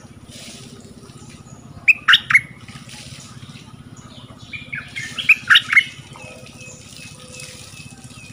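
A bulbul calling with short, loud chirping notes: a group of three about two seconds in, then a quicker run of several notes around five seconds in.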